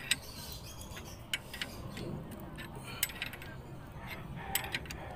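Scattered light metallic clicks and clinks from a screw-type brake caliper piston compressor and the caliper it is clamped on, being handled while the piston is pressed back.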